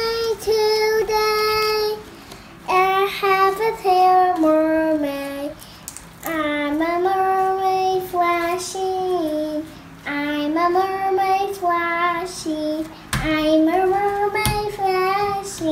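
A child's voice singing a tune in long held notes, phrase by phrase with short breaks between, and a couple of sharp knocks near the end.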